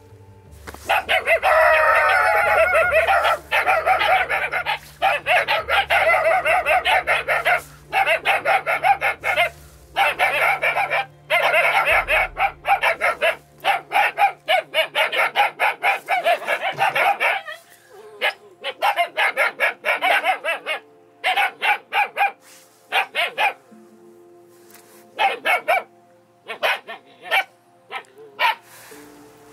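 A group of young DDR-line German Shepherd pups barking together in rapid, overlapping barks, alarm barking at a stranger approaching their kennel run. After about seventeen seconds the barking thins to scattered single barks that die away.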